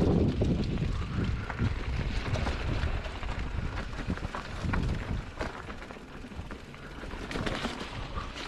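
Mountain bike ride heard through a wind-buffeted camera microphone: a steady low rumble of wind and rolling tyres with scattered clicks and knocks from the trail and bike, easing off in the second half.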